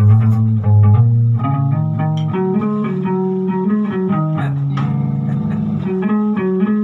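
Guitar music with a bass line: plucked notes changing every half second or so over sustained low bass notes.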